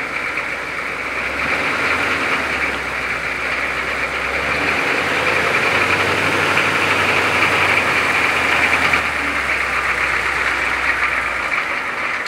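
Engine of a Chevrolet K30 maintenance truck running steadily as the truck drives slowly up across the yard.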